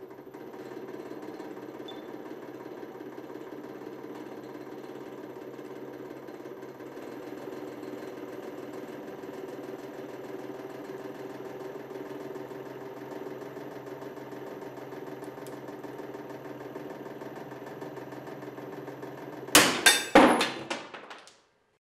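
Hydraulic press running with a steady hum as its ram squeezes a pair of steel combination pliers. Near the end the pliers give way with a loud crack, followed by a few more sharp bangs as the pieces break apart and fly off.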